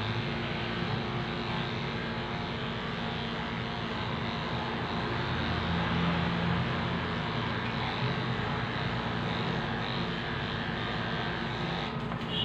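Corded electric pet clippers running with a steady buzz as they cut through a dog's long coat.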